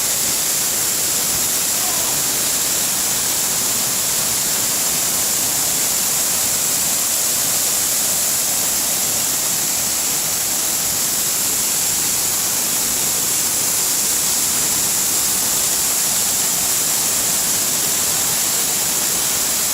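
A 45-metre waterfall pouring down: a steady, even rush of falling water that does not change.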